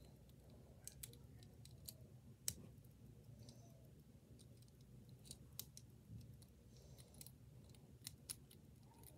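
Small plastic LEGO bricks clicking faintly as fingers handle them and press them together, in irregular scattered clicks with one louder snap about two and a half seconds in.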